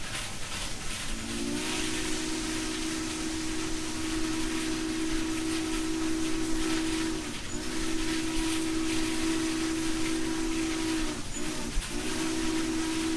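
HO scale model steam locomotive's sound-system chime whistle blowing: a long blast of several notes together, a second long blast, a short toot about eleven seconds in, then another long blast, over a steady hiss.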